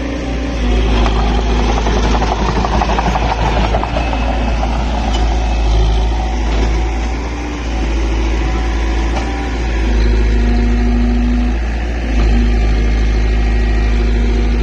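Excavator's diesel engine running steadily with a strong low rumble.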